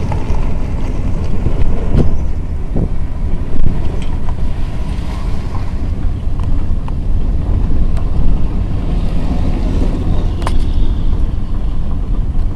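A vehicle running and moving, with heavy wind buffeting the microphone as a low, gusty rumble, and a few short knocks.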